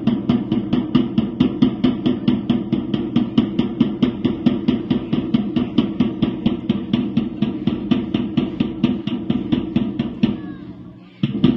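A fast, even percussion beat for a marching drill, about five sharp strikes a second over a steady low hum. It fades and stops about ten seconds in, then starts again suddenly near the end.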